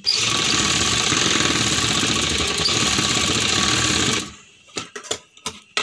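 Sewing machine running steadily as it stitches a straight seam through cotton fabric, stopping abruptly about four seconds in. A few faint clicks follow.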